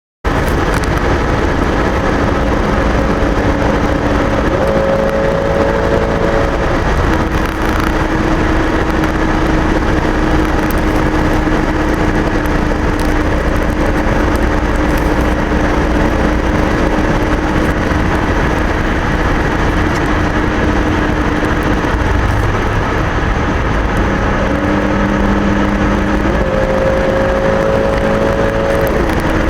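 Car driving on the road: steady road and engine noise, with an engine hum that climbs in pitch in steps twice, once early and once near the end, and holds level in between.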